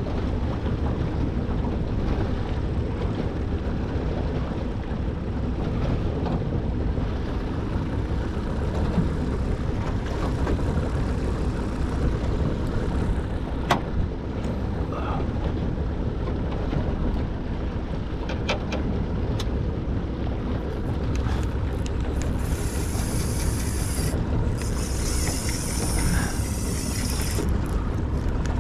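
Steady wind buffeting the microphone on a small boat at sea, with a sharp click about halfway through. Near the end a spinning reel gives a high-pitched whirring in two spells of a few seconds each.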